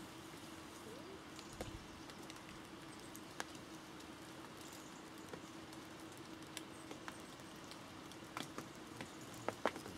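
Fine rain pattering on a bivvy canopy: scattered, irregular raindrop ticks over a faint steady hiss, with a cluster of louder drops near the end.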